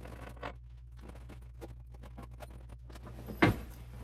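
Clothing being packed back into a large storage bag: fabric and bag material rustling and scraping in quick handling sounds, with one louder rustle about three and a half seconds in.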